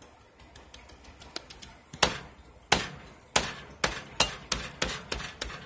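A series of sharp knocks and clinks of kitchenware, faint at first and then loud from about two seconds in, at roughly three a second.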